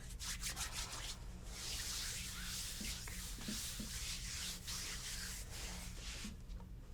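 Massage strokes: hands rubbing over the body, with a few quick short strokes at first, then one long continuous rubbing stroke lasting several seconds.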